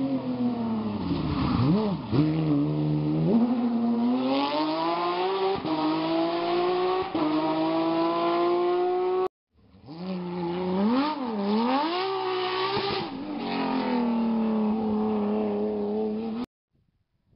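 Porsche 997 GT3 rally car's flat-six engine at full racing load: the note drops and wavers as it brakes and downshifts, then climbs steadily as it accelerates hard. About halfway the sound cuts off abruptly and resumes with a second pass of the same braking-then-accelerating run, and it cuts off again just before the end.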